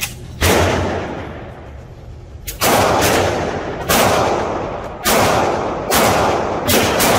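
Gunshots at a shooting range: six single shots spaced roughly a second apart, each a sharp crack that echoes and dies away.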